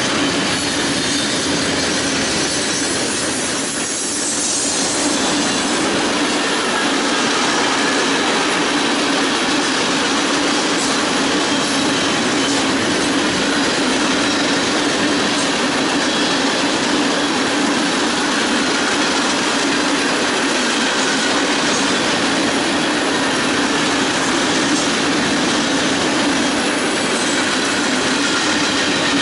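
A freight train's cars rolling past close by, giving steady, loud wheel-on-rail noise with a constant low hum.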